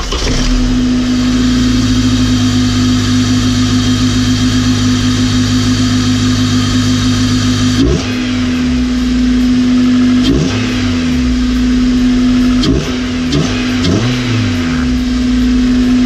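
2004 Honda Accord 2.4-litre DOHC four-cylinder engine running at idle with a steady hum, which the owner calls a "whoo" at idle. In the second half it is revved in about five quick throttle blips, the pitch rising and falling each time while the hum carries on.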